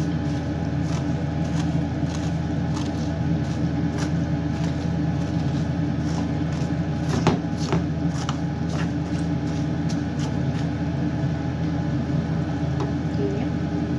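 Vermicelli frying in oil in a nonstick pan, stirred with a spatula: scattered light clicks and scrapes, a sharper one about halfway, over a steady low hum.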